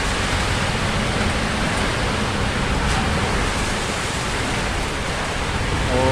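A storm's wind and heavy rain make a steady, dense rushing noise. A short pitched tone starts right at the end.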